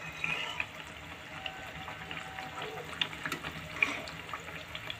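Layered maida pastries (chonge) frying in hot oil in a pan: a steady sizzle with many small scattered pops and crackles.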